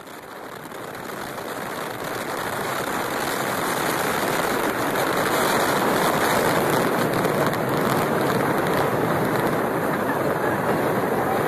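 Steady rushing road and wind noise from a vehicle travelling at highway speed, fading in over the first few seconds and then holding even.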